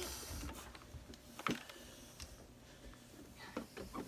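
Faint handling sounds: a short rustle at the start, then a few light clicks and taps.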